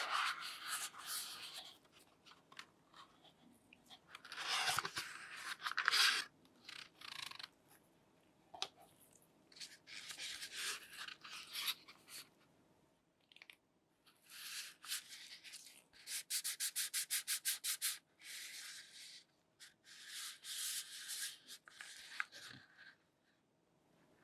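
Rubbing and scraping of packaging being handled while a phone is unboxed, in separate bursts, with a quick run of about a dozen short scraping strokes about two-thirds of the way through.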